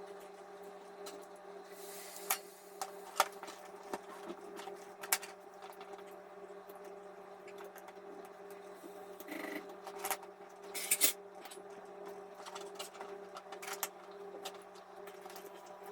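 Small clicks and short scrapes of a tool prying at an iPhone 6's battery, stuck down by old, deteriorated adhesive, over a steady hum. A few sharper clicks come in the first five seconds and a short cluster about ten seconds in.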